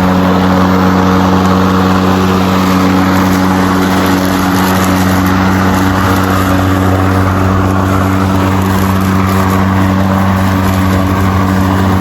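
Greenworks Pro 80-volt cordless electric lawn mower running steadily, its motor and spinning blade making an even hum.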